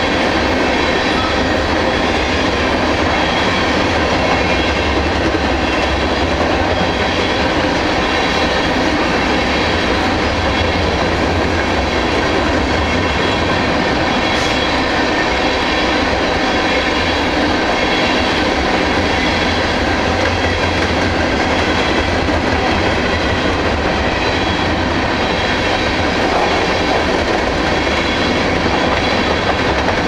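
Covered hopper cars of a freight train rolling past close by: a steady, even noise of steel wheels on rail, with a strong low rumble.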